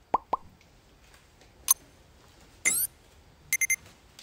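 Subscribe-animation sound effects: a few quick pops, a click, a short rising swish, then a bell ringing three quick times near the end.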